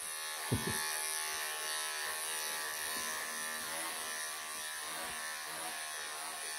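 Wahl electric pet clippers buzzing steadily as they shave through a Persian cat's long coat, with a brief soft bump about half a second in.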